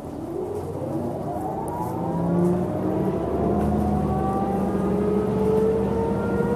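2007 New Flyer DE40LF diesel-electric hybrid bus pulling away and accelerating. The Allison EP40 hybrid drive gives a whine that rises steadily in pitch, and the Cummins ISL diesel gets louder from about two seconds in.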